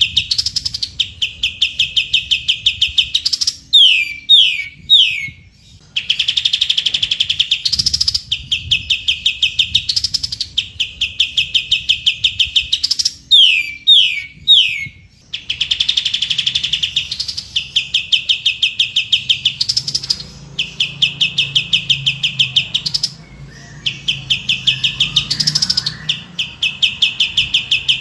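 Kapas tembak song: rapid, machine-gun-like trills of evenly repeated high notes, several seconds each, broken twice by a run of three quick falling whistles.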